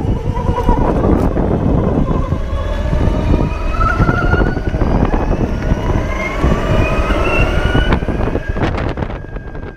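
BMW C-Evolution electric maxi-scooter riding, heard close to the rear wheel and drive housing: heavy wind and road noise with the electric drive's whine climbing steadily in pitch as the scooter gathers speed. The sound fades out near the end.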